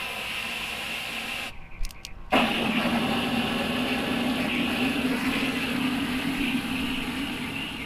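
Garden hose spray nozzle jetting water into a plastic bucket, splashing and churning the water already in it as the hydroponic reservoir fills and the nutrients mix in. The stream cuts out briefly with a couple of clicks about one and a half seconds in, then comes back louder.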